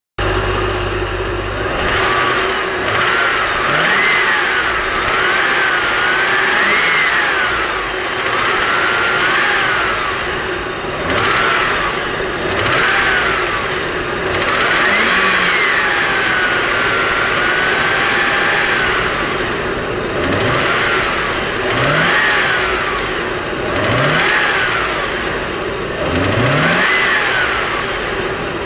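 Rover V8 engine revved up and down repeatedly, with a whine that rises and falls along with the revs. This is the abnormal noise that appears under load or when accelerating.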